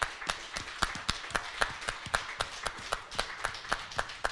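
Hands clapping in a steady rhythm, about four claps a second, over a light background hubbub.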